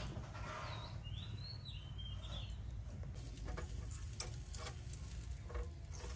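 A bird chirps in short gliding calls during the first couple of seconds. From about three seconds in, metal tongs click and tap against a wire grill rack as a fish is laid over the charcoal, over a faint steady hiss.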